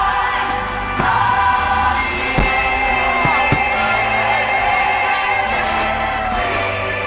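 Fireworks-show music with a choir singing over orchestral backing. A few short firework bangs sound over it, the strongest about 1 and 2.4 seconds in.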